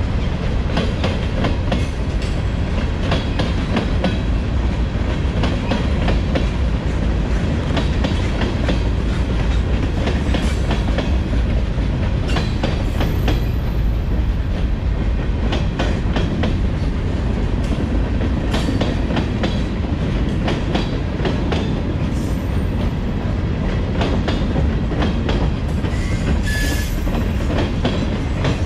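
Freight train cars rolling past: a steady low rumble with wheels clicking over rail joints, and a few brief high wheel squeals.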